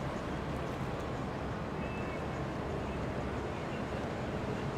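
Boat engines running steadily, a low hum under an even wash of noise.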